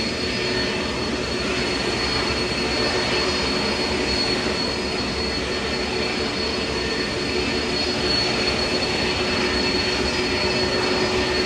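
Jet airliner engines running steadily: a wide rush of noise with a held high whine and a lower hum, growing a little louder near the end.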